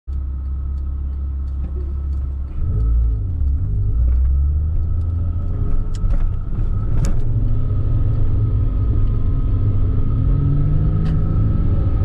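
Porsche flat-six engine heard from inside the cabin, a steady low hum at first, then getting louder as the car pulls away about two and a half seconds in. The pitch rises into the midrange near the end, with a few sharp clicks in the middle.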